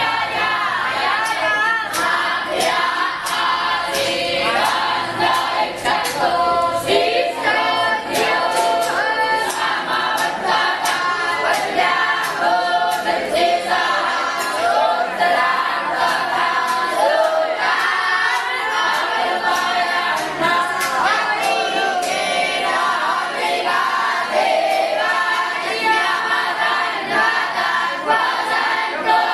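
A group of young voices chanting or singing together in chorus, with many short clicks among the voices.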